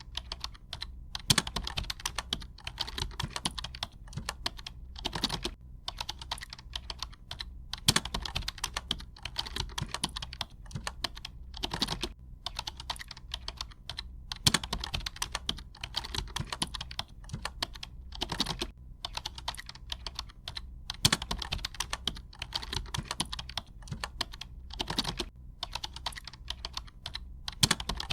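Typing on a computer keyboard: fast runs of key clicks broken by short pauses, with a louder keystroke every few seconds.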